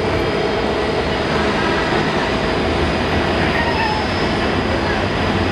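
Steady jet aircraft noise from a Boeing 777-200ER under tow by a pushback tug: an even low rumble with a faint high whine and no break.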